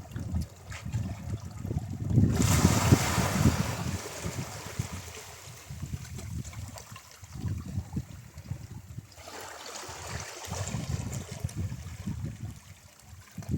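Ocean waves breaking on the shore and washing up: two hissing surges, one about two seconds in and another about nine seconds in, over a low, uneven rumble of surf.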